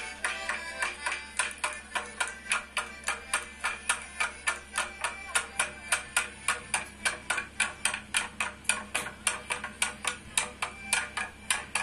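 Sharp percussive beats keeping a fast, even rhythm, about four to five a second, with faint music underneath.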